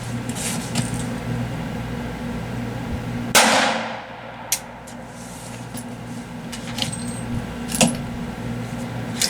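A single .22 LR pistol shot from a Taurus TX22 about three seconds in, followed by a few light clicks. The pistol failed to eject the spent case, a malfunction it shows with Aguila ammunition.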